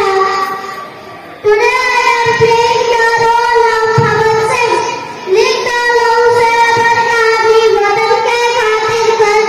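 A young boy singing into a microphone in long held notes, pausing for breath about a second in and again about five seconds in.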